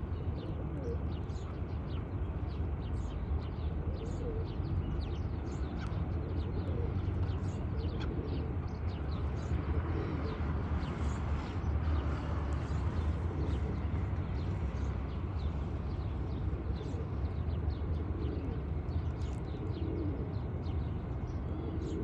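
A flock of pigeons cooing, with many short high chirps scattered throughout, over a steady low rumble.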